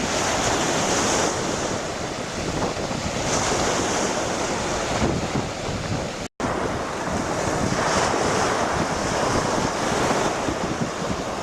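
Surf: waves breaking and washing on the shore, swelling every three to four seconds, with wind rumbling on the microphone. The sound cuts out for a split second a little past halfway.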